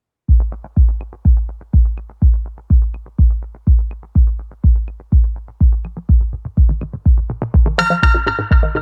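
Electronic dance music: a steady kick drum beating about twice a second, joined by synth chords a little before the end.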